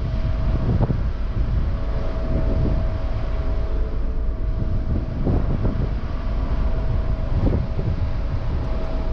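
Wind buffeting the microphone on the open deck of a moving cruise ship, a heavy low rumble with a few stronger gusts, over a thin steady hum.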